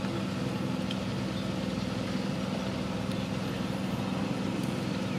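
A steady low mechanical hum, like an engine running at idle, holding even throughout.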